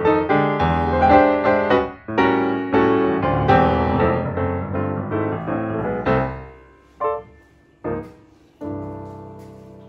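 Background piano music: a busy run of notes, then three separate chords near the end that each ring and fade away.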